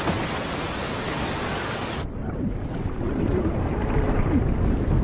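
Loud rush of tsunami floodwater churning through debris. About two seconds in the hiss cuts off abruptly, leaving a muffled underwater rumble with gurgling.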